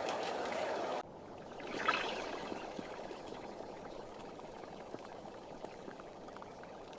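Steady water sound, pouring or running liquid, that drops suddenly in level about a second in, then swells briefly and settles into a quieter trickle.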